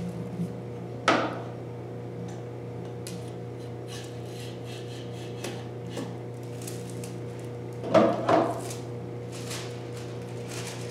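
Knocks and rubbing as a foil roll on its cardboard core is slid onto a metal mandrel bar and the bar is set back into the laminator's brackets. There is one sharp knock about a second in and two close knocks about eight seconds in, over a steady low hum.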